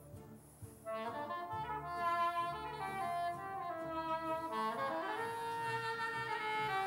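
Klezmer band playing a melody, soft at first and then coming in fuller and louder about a second in.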